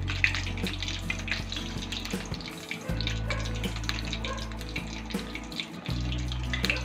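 Marinated chicken pieces deep-frying in hot sunflower oil in a kadai: a steady bubbling and crackling sizzle with many small spits.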